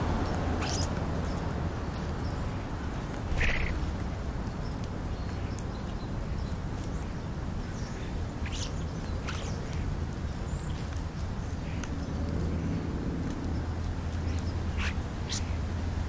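European starlings giving brief, scattered high squeals and whistles as they feed, one louder call about three and a half seconds in, over a steady low hum.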